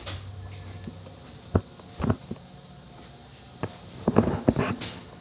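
A person's footsteps with scattered sharp knocks, ending in a cluster of several louder knocks near the end, over a faint low hum at the start.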